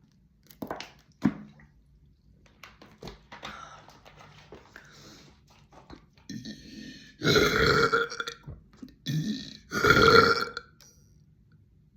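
A woman burping: two long, deep, loud burps about seven and ten seconds in, with a shorter burp between them.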